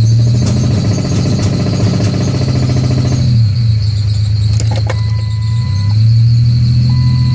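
1998 Ford Ranger's 3.0 L V6 engine running badly with a misfire: for the first three seconds or so it stumbles with a fast, rough stutter as it is put in gear and hesitates, then settles back to a steady drone. A steady high squeal from a squeaky belt runs underneath, and a one-note chime sounds on and off.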